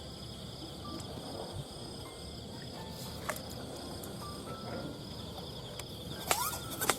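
Insects chirring steadily in a high, pulsing trill, with a few sharp clicks, the loudest two near the end about half a second apart.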